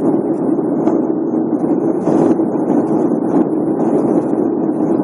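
Steady cabin noise of an airliner in flight, an even noise with no changes.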